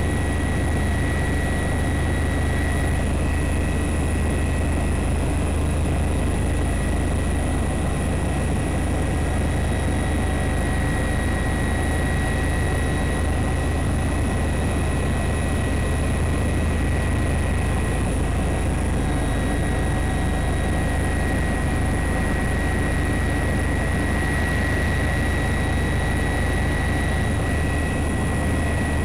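Helicopter engine and rotor noise heard from on board, a steady unbroken low hum with thin high tones held constant over it.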